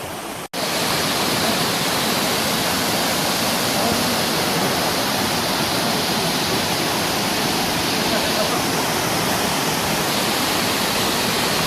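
Waterfall rushing steadily. The sound cuts out for an instant about half a second in, then comes back slightly louder and holds steady.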